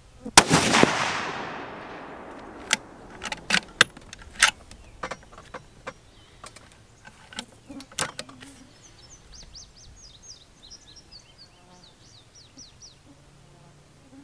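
A single shot from a Springfield 2020 Redline .308 bolt-action rifle with a 16-inch barrel and radial muzzle brake about half a second in, its report echoing away over a second or so. Several sharp metallic clicks follow as the bolt is worked, and a bird chirps rapidly in the background near the end.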